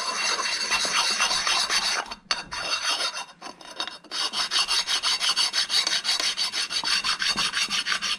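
A small sharpening stone rubbed back and forth in quick strokes over the machined aluminium sealing face of a Cummins ISX VGT turbo actuator housing: a continuous gritty scraping, with a brief break about two seconds in. The stone is taking down high spots so that the face is flat and seals to the turbo.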